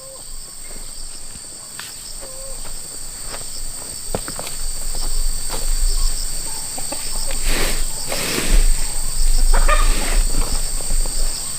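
Insects keeping up a steady high-pitched chorus, with scattered knocks and scrapes and a few louder rustling noises about eight to ten seconds in.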